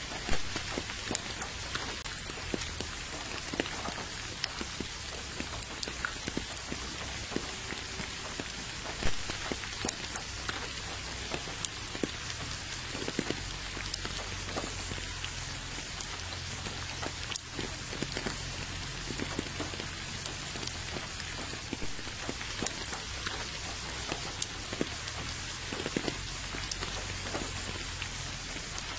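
Steady rain falling into a puddle and onto wet ground, many separate drops ticking against the water over a constant hiss. A few louder drops stand out, one just after the start and one about nine seconds in.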